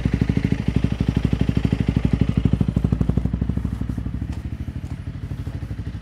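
Honda CRF300L Rally's single-cylinder four-stroke engine idling through a MotoX aftermarket exhaust with its silencer baffle removed: a much louder thrum, an even rapid beat of exhaust pulses at about a dozen a second, easing slightly quieter partway through.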